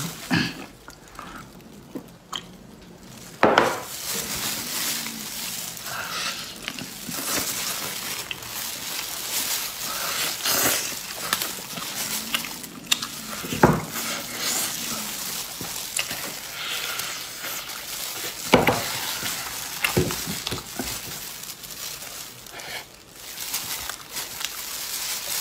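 Close-miked eating: wet chewing and smacking of grilled spiced rib meat, with irregular sharp crackles as gloved hands tear meat from the ribs.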